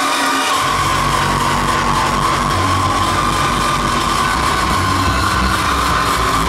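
Uptempo hardcore dance music played very loud over a large PA, with a sustained high synth tone throughout and the bass dropping in about half a second in. The sound is overdriven, clipping the camera's small built-in microphone.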